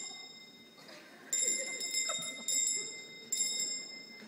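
A small metal bell rung in rapid trills, three short rings in a row starting about a second in, with a faint murmur of voices beneath.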